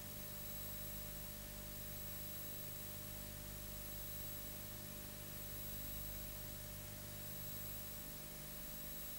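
Steady hiss with a low hum and a few faint, constant high tones: the background noise of an old recording transfer, with no other sound on top.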